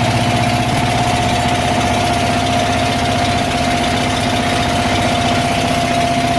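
Boat engine running steadily, a fast even throb with a constant tone over it.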